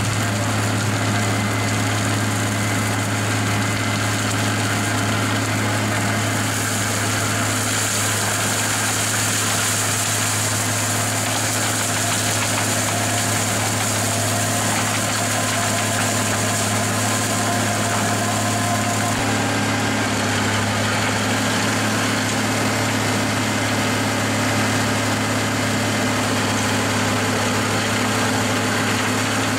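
JCB Fastrac 8250 tractor running under steady load while its PTO-driven FAE mulcher shreds bushes and undergrowth, a constant low drone with the hiss of the rotor chipping material. The hiss grows brighter from about seven seconds in until about nineteen seconds.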